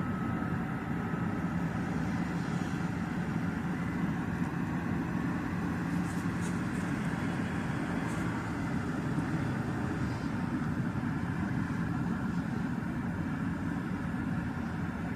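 Steady low mechanical drone with a faint constant hum, unchanging in level, of the kind recorded as a noise-pollution nuisance.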